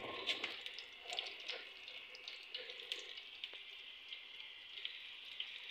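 Gram-flour (besan) batter pakoras deep-frying in hot oil: a light, steady sizzle with fine crackling pops.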